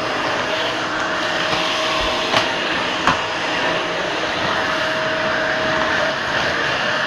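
Shark Rotator Professional Lift-Away vacuum cleaner running steadily with a steady whine as it is used on a rug. Two short knocks less than a second apart about two and a half seconds in.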